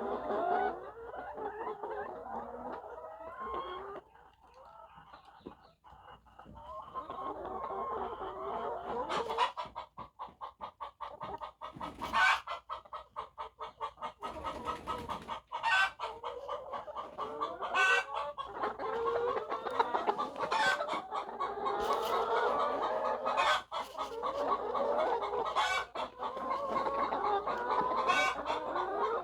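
A flock of layer hens clucking and calling, many birds at once. A rapid rattle runs for a few seconds in the middle, and sharp knocks sound every second or two.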